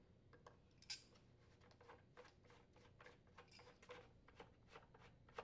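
Faint clicks and ticks as the fuel tank mounting nut on a Honda small engine is unthreaded from the tank neck, first with channel lock pliers and then by hand. There is one sharper click about a second in.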